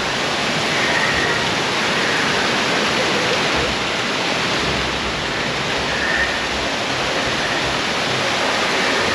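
Steady, loud rush of a waterfall pouring, with a few faint brief high notes over it.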